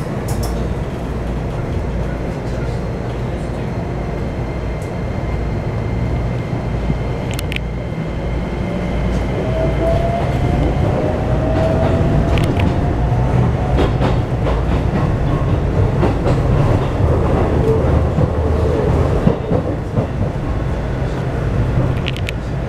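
Running noise inside a Keikyu New 1000 series train car driven by a Toyo IGBT-VVVF inverter: steady low rumble with a faint rising motor whine from about nine seconds in, growing a little louder, and a few sharp clicks of the wheels over the track.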